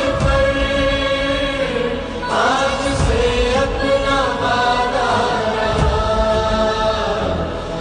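A song playing: a singing voice holds long, gliding notes over instrumental accompaniment.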